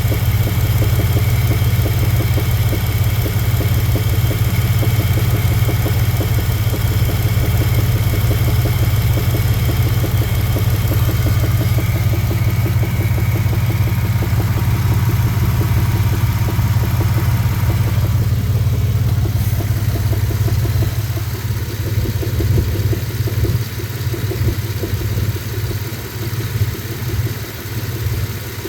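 2000 Dodge Dakota's 3.9-litre V6 engine running with a knock whose cause the owner is asking about. The sound grows duller and somewhat quieter in the last third.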